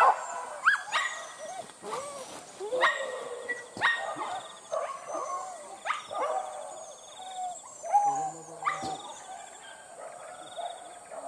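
Hunting dogs of a pack yelping and baying as they chase a wild boar, with many short overlapping calls rising and falling in pitch.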